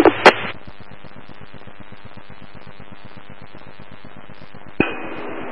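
Radio scanner between transmissions: a sharp click just after the start as a transmission drops, then steady radio static hiss. Near the end another transmission keys up with a click and a slightly louder open-carrier hiss.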